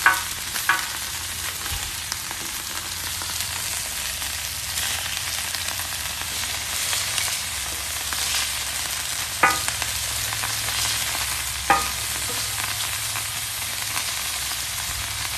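Burgers and bacon sizzling steadily in bacon grease on a portable flat-top griddle, with four short sharp clinks: two near the start and two later on.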